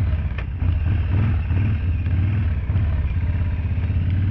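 Harley-Davidson V-twin engine running steadily at low speed, a deep, even rumble, with a short click about half a second in.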